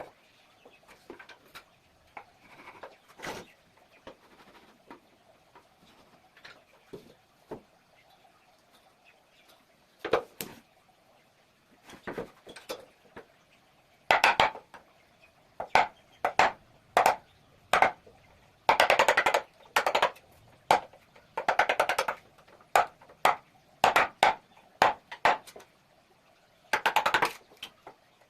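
Repeated sharp knocks and taps on wood: a few scattered ones at first, then quick runs of blows from about halfway through, with some stretches of very rapid strikes.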